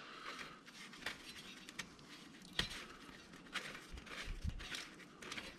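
Faint, scattered clicks and light scrapes of a dipstick being screwed into and drawn back out of the oil filler hole on an ATV engine whose oil has just been drained.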